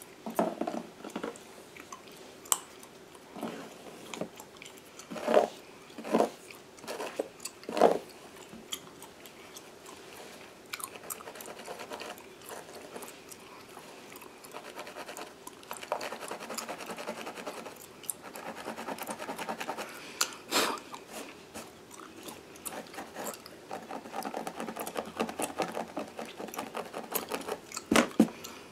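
Close-miked gum chewing with sharp wet smacks every few seconds, over the fine, rapid scratching of a fine-toothed comb and fingernails working through the hair at a mannequin head's scalp. The scratching grows denser in the second half.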